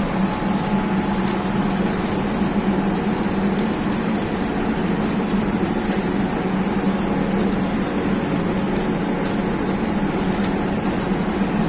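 A machine running steadily: a constant low hum with an even hiss and faint crackle above it.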